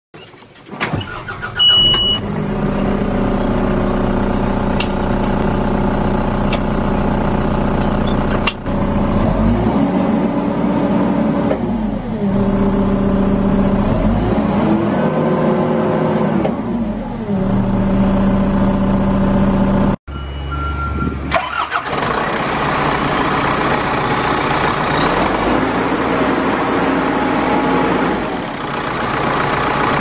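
2010 John Deere 310J backhoe loader's four-cylinder diesel engine cranking and catching, with a short high warning beep just after it starts. It then runs steadily and is revved up and down several times. After a sudden cut near two-thirds through, the same engine runs on, heard from beside the open engine compartment.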